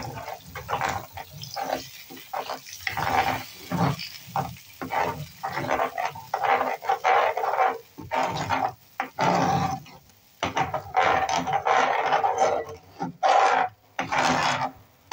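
Metal spoon stirring a wet sauce just thickened with a cornstarch slurry in a nonstick frying pan, scraping against the pan in quick, uneven strokes.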